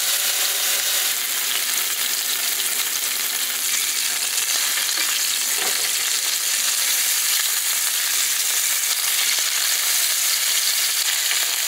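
Beef fillets searing in hot olive oil in a grill pan: a steady sizzle, with one light tap about halfway through.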